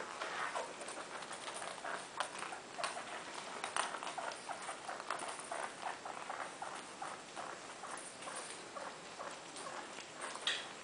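Pet rats scampering and scrabbling on carpet while playing with a ping pong ball: an irregular patter of small clicks and scratches, with a sharper click near the end.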